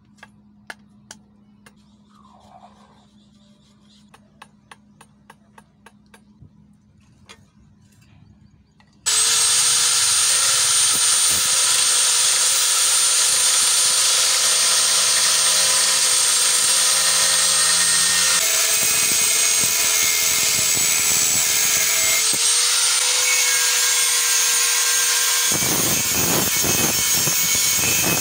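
Scattered light clicks over quiet for about nine seconds, then an angle grinder with a thin cut-off disc switches on suddenly and runs loud and steady with a high whine, cutting and grinding along the steel blade of a bolo, its sound shifting as the disc bears on the metal.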